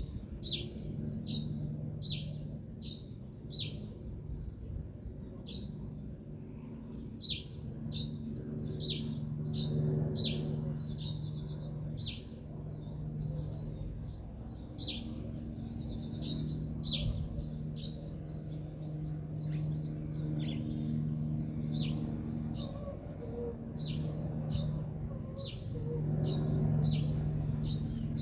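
Songbird repeating short, sharp, falling chirps, about two a second, with two brief higher trills from another bird about ten and sixteen seconds in. A low steady hum runs underneath.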